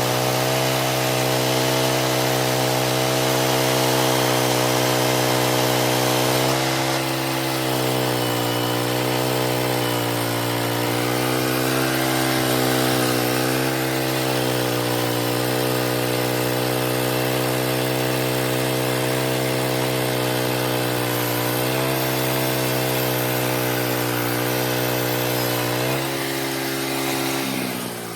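Homemade sawmill driven by a 13-horsepower Princess Auto Power Fist gas engine, running loud and steady while it saws through a large log. The engine's pitch sags under the cutting load several times, then falls away near the end.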